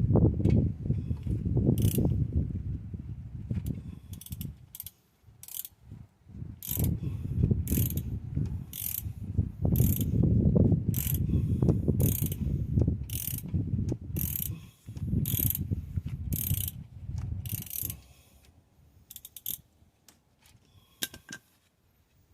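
Ratchet wrench with a 14 mm socket turning a brake caliper bolt, its pawl rattling through repeated swings with a sharp click about once a second. The runs stop near the end, leaving a few faint clicks.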